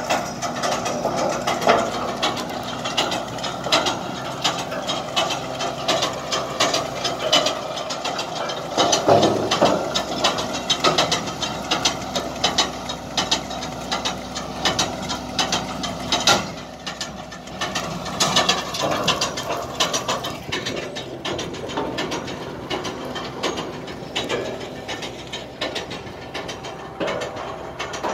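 Tractor-towed Kivi-Pekka stone picker at work: a dense, rapid clatter of stones and soil rattling through the machine, over the steady hum of the tractor engine.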